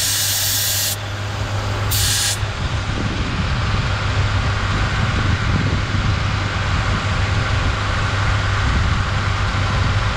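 Air hissing out of a car tyre through a dial-gauge tyre deflator. The hiss cuts off about a second in, comes back in one short burst about two seconds in, then stops. A steady low hum runs underneath throughout.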